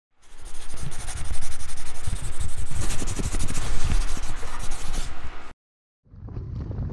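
A loud, rough scraping, rasping noise with fine rapid crackle and low thumps, lasting about five seconds and cutting off suddenly. After a brief silence, wind noise on the microphone starts near the end.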